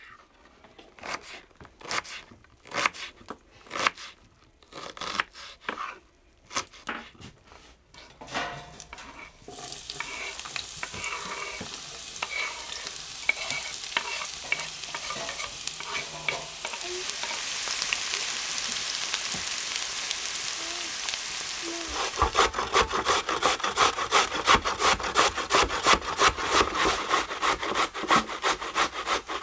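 Irregular clicks and scrapes, then a steady sizzle of food frying in a pan, then loud rapid rhythmic scraping strokes, about three a second, that start suddenly about 22 seconds in.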